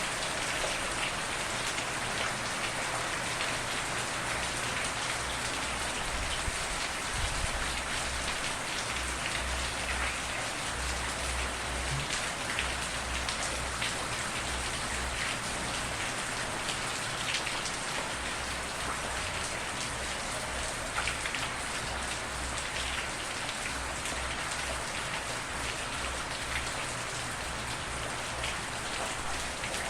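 Steady rain without thunder, falling evenly: a dense hiss with individual drops spattering through it.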